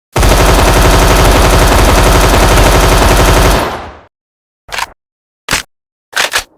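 HK21 machine gun firing one sustained full-auto burst of about three and a half seconds. It is followed by three short, separate sharp sounds a little under a second apart.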